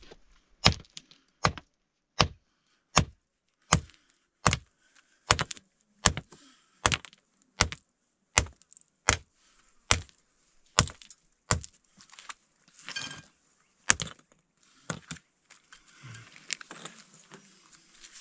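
Hand hammer striking a rough stone to knock pieces off and shape it. About fifteen sharp blows come at a steady pace, roughly one every three-quarters of a second, followed by a few scattered blows and then scraping and rustling as the stone is shifted near the end.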